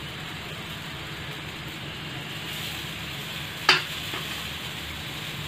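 Semolina batter sizzling steadily on a hot iron tawa, with one sharp click about two-thirds of the way through.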